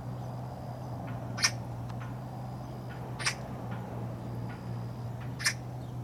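Magpie giving three short, harsh calls about two seconds apart, over a steady low hum.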